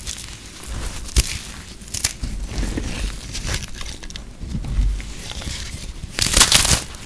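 Hands breaking and crumbling microwave-puffed soap: crunching with scattered crackles, a sharp snap about a second in and a louder burst of crunching near the end.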